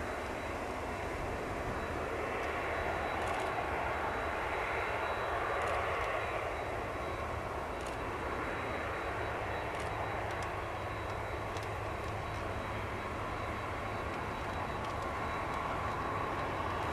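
Boeing 747-400F freighter's four jet engines running at taxi power: a steady rumble and hiss with a thin high whine.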